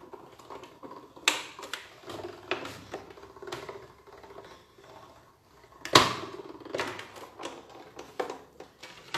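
Uneven clicks and knocks from a hand-cranked Mimo die-cutting and embossing machine as the plate sandwich with the cutting die is run through and pulled out. There is one sharp loud knock about six seconds in.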